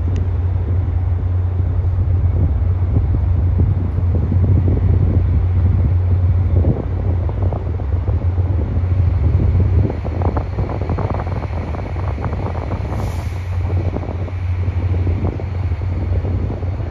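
Steady low rumble with wind buffeting the microphone as an Amtrak Acela trainset rolls slowly in over the station tracks, with a stretch of rattling about ten seconds in.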